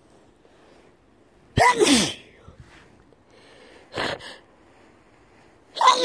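A man sneezing: one loud sneeze with a falling voiced cry about a second and a half in, a shorter, quieter sound around four seconds, and the start of another loud sneeze at the very end.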